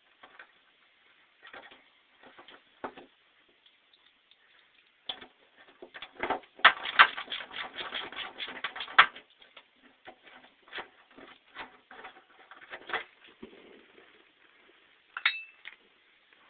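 Metal clicks, knocks and clinks of hand tools working the old factory U-clips off the truck's body, with a burst of rapid, loud clattering from about six to nine seconds in.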